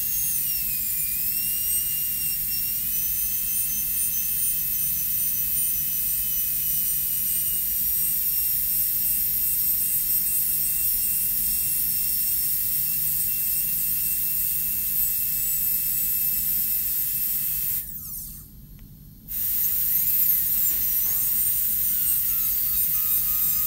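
High-speed dental handpiece whining steadily with water spray as its bur cuts the mesial proximal box of a plastic typodont maxillary first molar. The pitch sags briefly as the bur is loaded near the start. About 18 seconds in it cuts out for a second or so, then spins back up with a rising whine.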